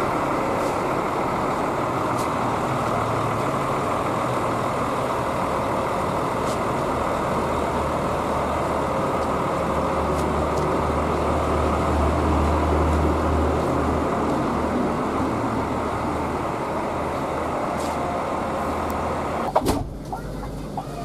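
Scania K360IB coach running close by, a steady dense noise with a low engine rumble that swells for several seconds in the middle as the bus moves. Near the end a sharp click cuts the sound off and it drops away.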